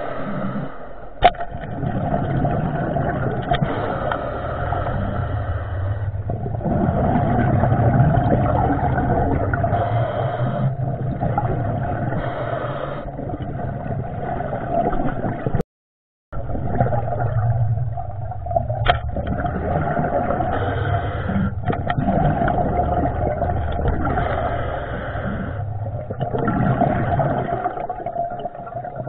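Muffled underwater noise picked up through a camera's waterproof housing: a steady rumbling hum with water movement. Two sharp clicks stand out, about a second in and about two-thirds of the way through, and the sound cuts out briefly about halfway.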